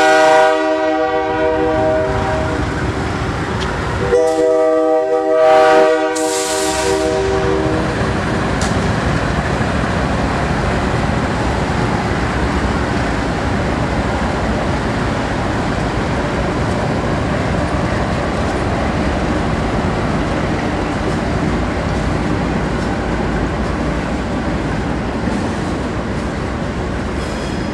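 Freight train's diesel locomotive air horn sounding a chord twice: one blast ending about half a second in, another from about four to six seconds in. Then the steady rumble and wheel noise of the diesel locomotives and tank cars rolling past.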